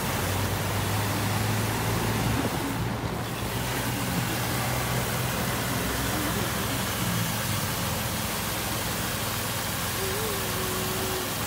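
Water tanker truck spraying water from its rear nozzles onto a dirt road: a steady hiss, with a low engine hum that is strongest in the first couple of seconds.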